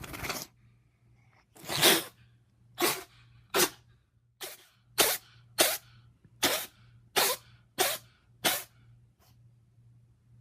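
A pet animal having a sneezing fit: about eleven short, sharp sneezes in a row, coming faster and more evenly toward the end.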